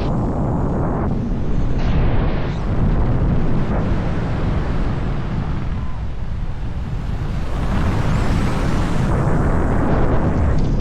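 Loud wind buffeting the microphone: a dense, steady low rumble. It shifts briefly in tone about a second in and again near the end.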